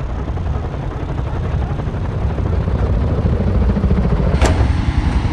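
Helicopter in flight, its rotor and engine noise a steady low rumble, with one brief sharp click about four seconds in.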